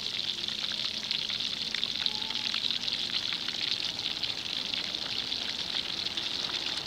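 Whole snakehead fish deep-frying in a pan of hot oil: a steady sizzle with fine crackling.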